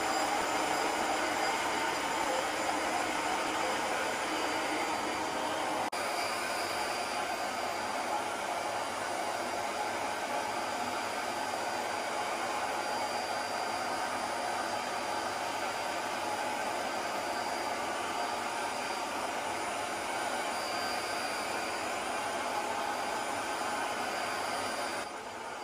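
BISSELL ProHeat 2X Revolution carpet cleaner running steadily, its motor drawing suction through the hose and hand upholstery tool as it is worked over couch fabric. The sound drops a little near the end.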